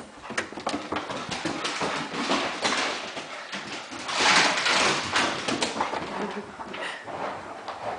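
A poodle and a pit bull romping together: a busy run of paw scrabbles, thumps and scuffles, loudest in a burst of scuffling about halfway through.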